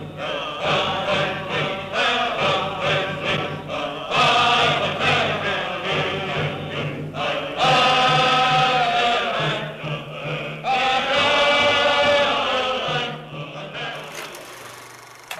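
Choral chanting: voices singing together over a steady low drone, with long held notes in the second half, fading out near the end.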